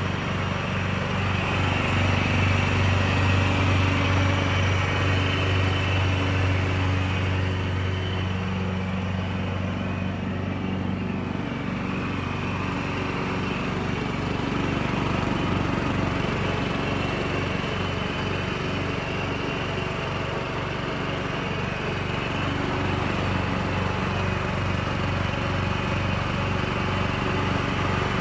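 Lawn Chief 16.5 HP lawn tractor engine running steadily, with its note changing and becoming more uneven about eleven seconds in.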